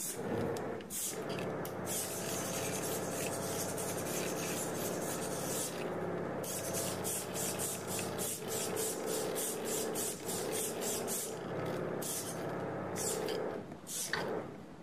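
Steady hissing, rasping noise with a low hum from the drive system working a robot arm's artificial muscles. Through the middle it pulses rapidly at about four times a second.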